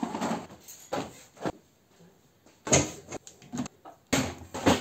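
A string of knocks, clicks and clatters from household objects being handled and set down, in several short bursts, the loudest about three seconds in and near the end.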